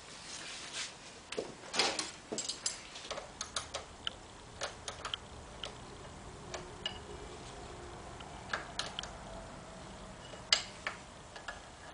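Combination wrench working the clutch-adjuster lock bolt at a BMW K75's transmission clutch lever, tightening it after the free-play adjustment: a string of sharp, irregular metal clicks and ticks.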